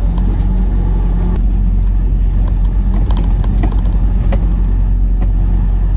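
Semi-truck's diesel engine running as the truck rolls slowly, heard from inside the cab as a steady low drone, with a few light clicks scattered through it.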